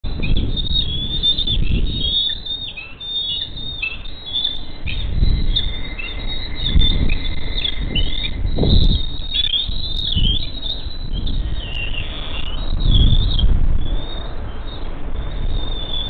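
Bald eaglets giving repeated high, thin chirping calls, the food-begging of hungry young eagles. The chirps sit over intermittent low rumbles.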